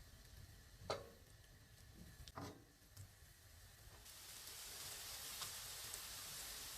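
Two sharp knocks, then from about four seconds in a steady sizzle of food frying in a hot pan.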